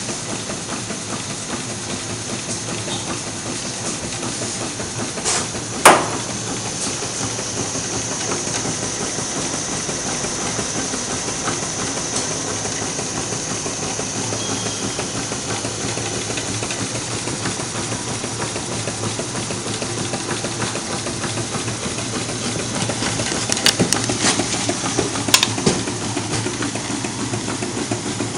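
Home-built two-cylinder Stirling engine running steadily, its linkages and crank clattering, over the steady hiss of the gas burners heating its cylinders. A single sharp knock about six seconds in, and a few clicks near the end.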